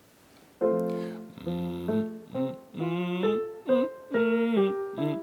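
Instrumental accompaniment for a vocal scale exercise: a run of pitched notes starting about half a second in, some short and detached, some held, changing pitch from note to note.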